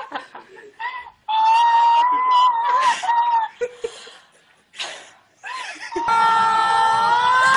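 A young woman's high-pitched squealing screams of joyful surprise, one held for about two seconds, with shorter squeals and breathy sobs around it. Near the end the sound cuts suddenly to steady crowd noise with a raised voice over it.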